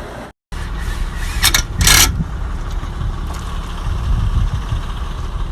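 A vehicle engine running with a steady low rumble, with two short noisy bursts about one and a half and two seconds in. The sound drops out for a moment near the start.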